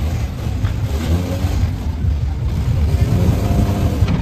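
Off-road 4x4 vehicle's engine running, a loud steady low rumble.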